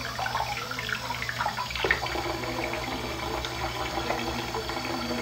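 Bathroom sink faucet running into the basin. Near the start the stream splashes off a hand held under it, then it pours freely into the sink.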